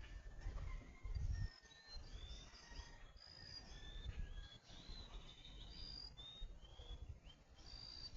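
Birds chirping, with many short whistled notes, some held level and some gliding, over a low rumble that swells about a second in.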